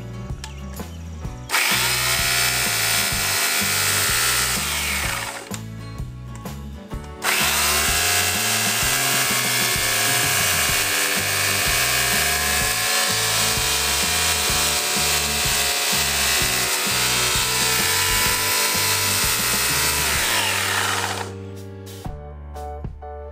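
Corded electric chainsaw running twice while cutting a pine branch. It spins up with a rising whine about a second and a half in, runs for about four seconds and winds down, then spins up again and saws for about fourteen seconds before winding down near the end. Background music plays underneath throughout.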